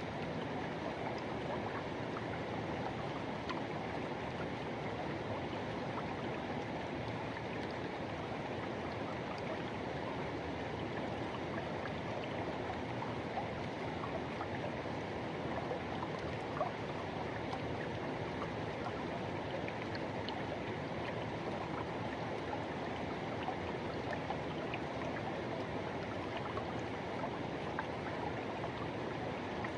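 Forest river rushing over rocks: a steady, even flow of water with small splashes and gurgles.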